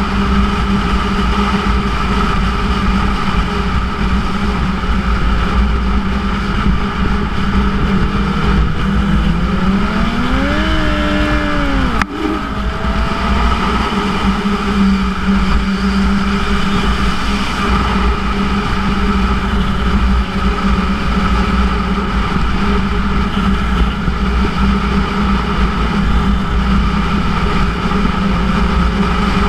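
2006 Yamaha YZF-R1's inline-four engine with a Yoshimura titanium exhaust, running at road speed under a heavy rush of wind. About nine seconds in the engine note climbs for a few seconds, then breaks off with a click about twelve seconds in before it settles back to a steady run.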